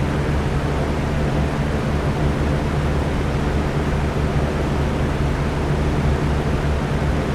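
Electric fan running steadily: an even whooshing rush of air over a low motor hum.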